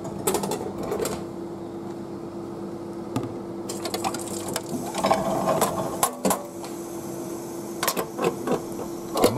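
Retro noodle vending machine finishing its cooking cycle: a steady motor hum with clicks and knocks as the delivery hatch opens. The hot ramen bowl then scrapes and clunks as it is pulled out of the serving slot.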